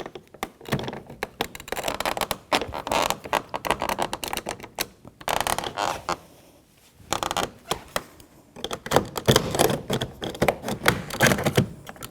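Plastic trim tool prying the master power-window switch panel up out of the door trim: dense, irregular plastic clicking and crackling, with a couple of short pauses partway through.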